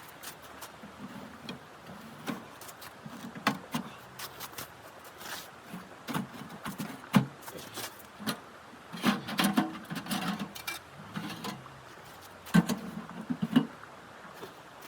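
Irregular handling noises: scattered sharp clicks and knocks with short, dull thuds or crunches, busiest about two-thirds of the way through and again near the end, over a steady hiss.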